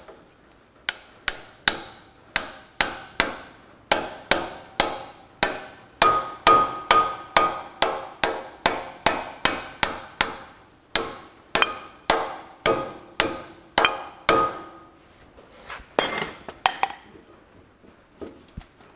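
Ball-pein hammer tapping a bearing onto the front hub spindle of a John Deere 4WD tractor: a long run of steady, light metallic taps, about two to three a second, that stop about fifteen seconds in, with two last ringing taps a little later.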